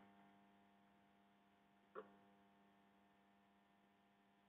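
Near silence: a steady faint electrical hum, with one short faint click about two seconds in.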